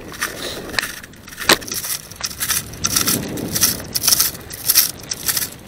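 Bicycle rattling and crunching as it rides over rough ground, its wheels clogged with mud, with a sharp click about a second and a half in.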